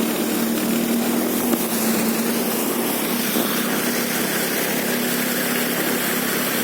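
Vehicle engine running steadily with a constant rush of water as the vehicle wades through flood water covering the road.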